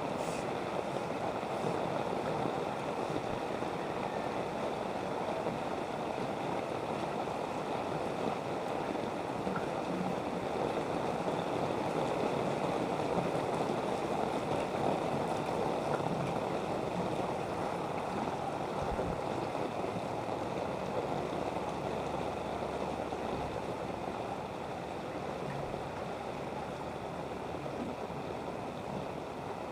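Steady rush and slosh of moving floodwater, an even wash of sound with no separate splashes standing out.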